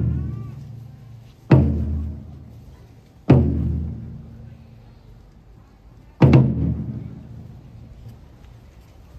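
Four slow, heavy strikes on a large percussion instrument of the procession music, each ringing out and fading over a second or two, with a longer gap before the last.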